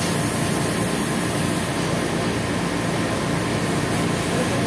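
Steady machine running noise: a constant low hum under an even hiss, unchanging throughout.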